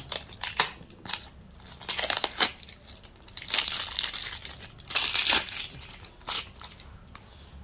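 Thin clear plastic wrapping film crinkling and tearing as it is pulled off a small product box by hand, in irregular crackles that ease off near the end.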